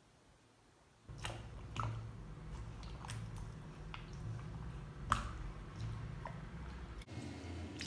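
Wet squelching of a hand working raw chicken pieces through a thick buttermilk marinade in a stainless steel bowl, with scattered short clicks. It starts about a second in.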